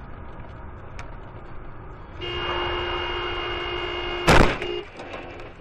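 Car horn sounding steadily over the road and engine noise inside a moving car, starting about two seconds in; a loud crash of a collision hits about four seconds in, and the horn stops shortly after.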